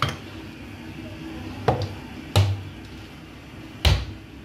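About four short knocks and dull clunks of kitchen jars and utensils being handled and set down while whole spices are added to mashed potatoes.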